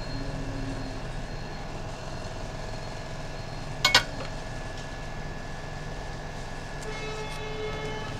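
Steady background hum with a short, sharp double click about four seconds in, as a phone's back cover is handled on a workbench. A faint held tone with overtones comes in near the end.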